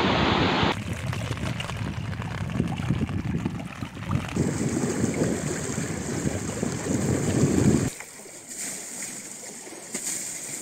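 Overflowing floodwater rushing, with a low rumble of wind on the microphone. The sound drops suddenly to a much quieter flow about eight seconds in.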